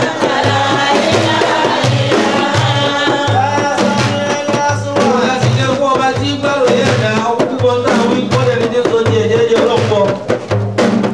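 Islamic dhikr chanted to music, a singing voice over a steady hand-drum beat.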